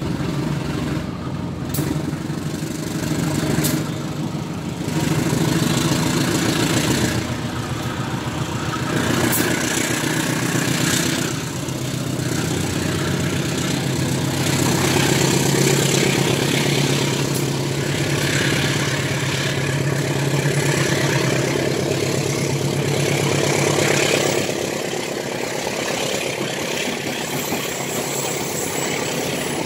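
Diesel engine of a train running steadily close by, a low drone that swells and eases slightly.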